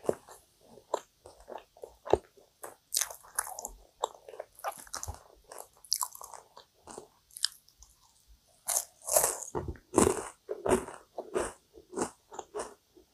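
Close-miked chewing and biting of flaky, cream-filled kouign-amann pastry (amann chou), a steady run of short crackles from the layered crust. The crackles come thickest and loudest about nine to eleven seconds in.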